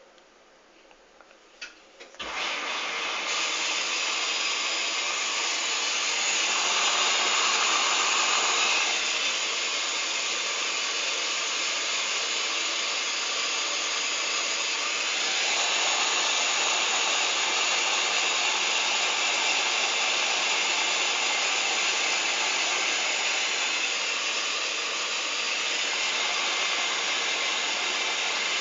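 Hoover Dynamic DYN 8144 D washing machine filling: water rushes in through the inlet valve and detergent drawer with a steady hiss that starts suddenly about two seconds in, after a few faint clicks.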